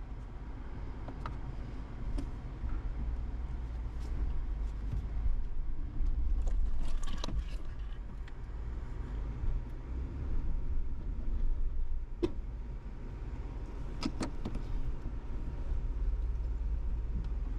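Ford Bronco crawling over a rough off-road trail: a steady low engine and drivetrain rumble, with a few sharp knocks and clicks in the second half.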